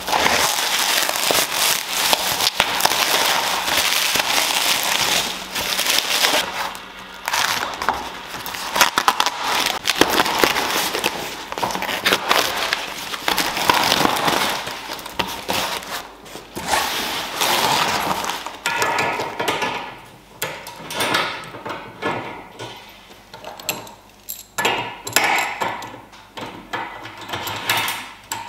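Plastic stretch wrap and cardboard packaging being cut and torn open, a dense crackling rustle. After about 18 seconds it gives way to sparser metallic clinks of bolts and steel brackets being handled on aluminium rails.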